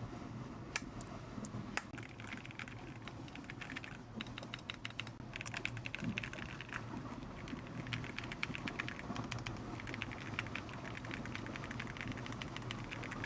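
Typing on an e-yooso Z99 mechanical keyboard with silver switches: keys clacking in quick, dense runs with short pauses between them.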